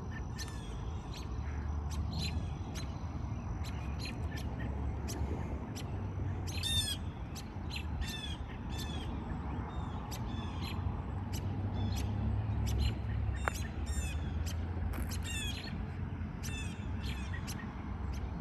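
Small birds giving short, repeated alarm calls, several every second or two, while mobbing a hawk, likely to defend their young. A steady low rumble runs underneath.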